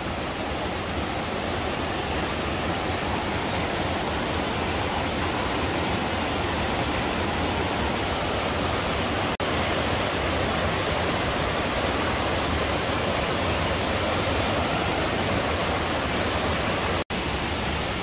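Rushing water of a fast-flowing stream tumbling over boulders in rapids below a waterfall: a steady, even rush, broken twice by an instant of silence, about nine seconds in and near the end.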